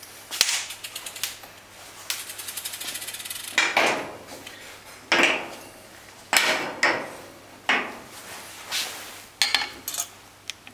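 Metal parts and tools being handled on a steel workbench: a quick run of fine ticking about two seconds in, then a series of sharp metallic knocks and clatters.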